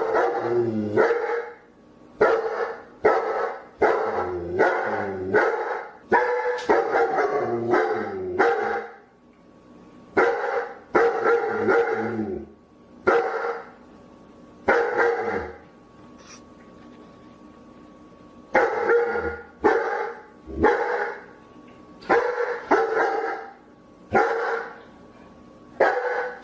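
Dog barking: quick runs of several loud barks in the first half, then single and paired barks spaced a second or two apart.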